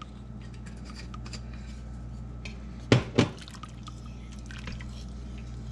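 Wooden spoon stirring thin red sauce in a stainless-steel Instant Pot inner pot: soft liquid sloshing and small clicks, with two sharp knocks about three seconds in, over a steady low hum.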